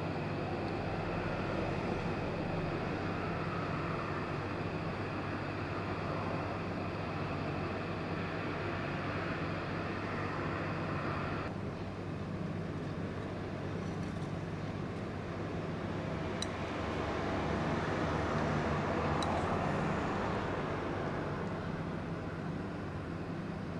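Steady ambient rumble and hiss with a low hum underneath; the higher hiss drops away about halfway through, and two faint short ticks come later.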